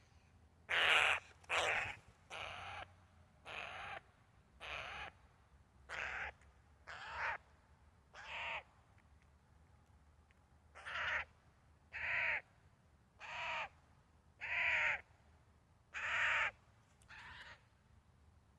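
Eurasian jay giving a series of about fourteen harsh, rasping screeches, roughly one a second, with a short pause midway.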